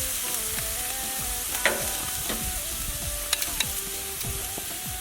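Meat sizzling on a barbecue grill: a steady hiss, with a few sharp crackles about two and three seconds in.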